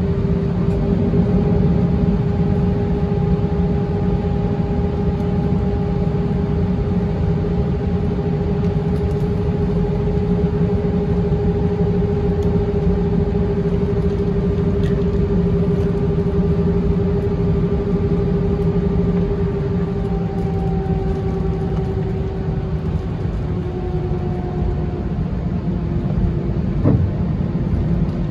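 Airbus A320-212's CFM56 jet engines running at idle during taxi, heard inside the cabin: a steady rumble under a steady whine that dips slightly in pitch about three-quarters of the way through. A brief click near the end.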